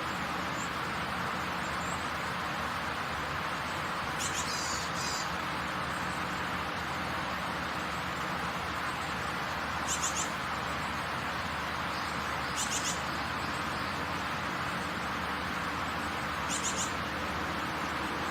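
Heavy rain falling, a steady even hiss. Four short high chirps cut through it, the first about four seconds in and the last near the end.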